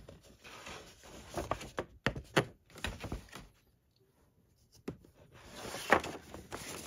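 A large paper poster being handled: a few short crackles in the first three seconds, a single tap near five seconds, then a longer rustle that swells and fades near the end.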